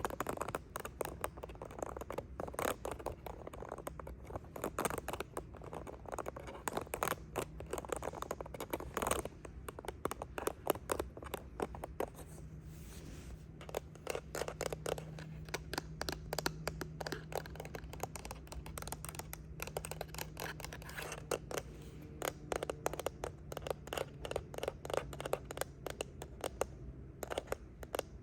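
Rapid ASMR tapping and scratching on a remote or phone, a dense run of small clicks and scrapes, with a faint low hum through the middle.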